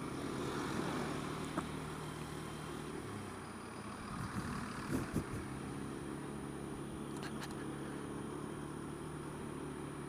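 Honda Dio scooter's engine running steadily at low speed in traffic, a low even hum. A couple of brief thumps about halfway through.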